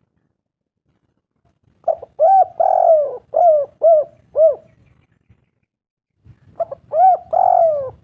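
Spotted dove cooing in two phrases. Each phrase is a couple of short notes, a longer drawn-out coo, then three short coos. The first phrase comes about two seconds in, and the second starts a few seconds later.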